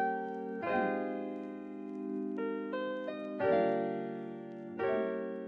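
Background piano music: slow, sustained chords with a few single notes in between.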